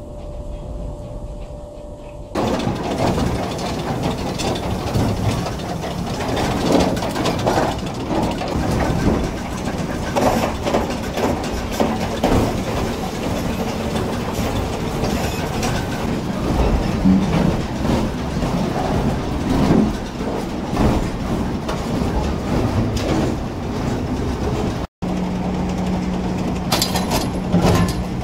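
Sawmill machinery running. A steady engine tone at first gives way to loud clattering and knocking as a log runs through a debarker's spiked feed rollers. After a brief dropout near the end, a steady low hum of the log deck conveyor remains under the noise.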